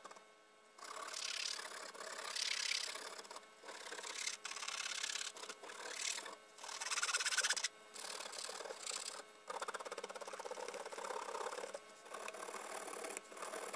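Fine-tip Sharpie marker scratching across a stretched canvas in runs of quick back-and-forth hatching strokes, with short pauses between the runs.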